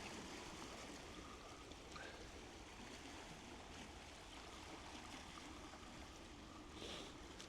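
Faint, steady water noise with a low rumble underneath.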